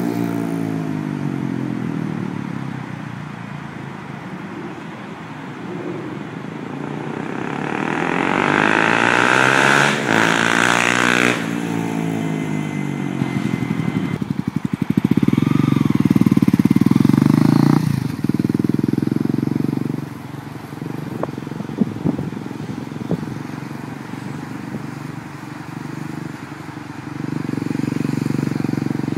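2011 Honda CBR250R's single-cylinder engine through a Yoshimura slip-on exhaust, its pitch rising and falling as the bike accelerates, slows and rides past. It runs loud and steady for a few seconds past the middle, then settles lower before picking up again near the end.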